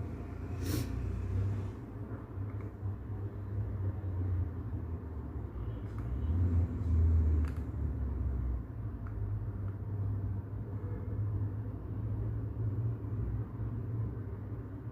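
Brown noise: a steady low rumble that swells a little in the middle, with a few faint clicks.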